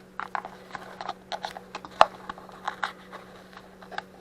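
Measuring spoon clicking and tapping against a salt container and mixing bowl while salt is scooped out: a quick, irregular series of light clicks, the sharpest about two seconds in.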